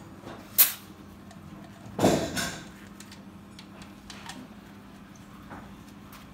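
A compression tester being taken off one cylinder and fitted to the next during a compression test: a short sharp burst about half a second in, a louder burst about two seconds in, then light clicks and taps of the gauge's hose fitting being handled over a faint steady hum.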